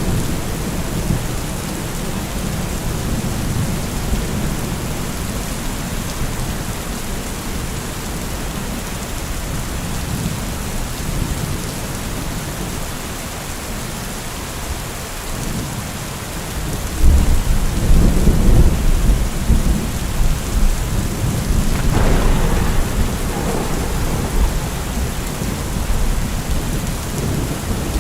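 Steady rain falling, with a thunderclap about two-thirds of the way through: a deep rumble that swells suddenly, a sharper crack a few seconds later, then a long rolling tail.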